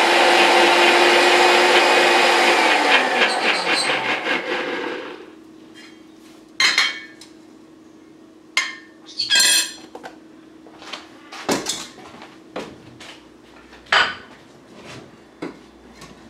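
Countertop blender running on the ceviche sauce, then switched off, its motor dropping in pitch and winding down about four to five seconds in. After that come scattered clinks and knocks of the jar and dishes being handled.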